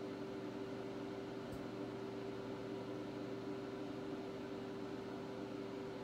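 Microwave oven running while it heats food: a steady, unchanging hum.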